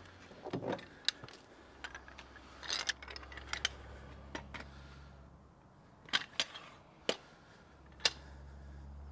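Sharp metal clicks and clinks as the green duck-head bar of a Rabaconda manual tire changer is handled and fitted into its stand, about eight separate clicks spread out, two in quick succession about six seconds in.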